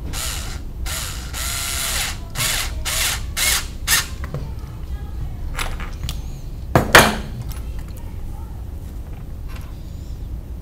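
Cordless drill run in a series of short spurts against a 3D-printed plastic part, about seven quick bursts over the first four seconds. A single sharp knock about seven seconds in is the loudest sound.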